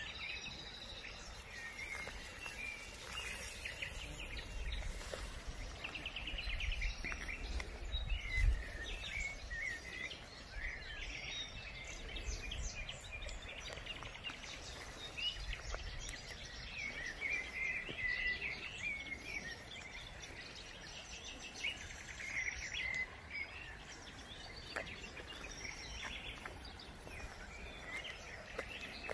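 Outdoor ambience of small birds chirping and singing in short repeated phrases, over a low rumble that swells about eight seconds in.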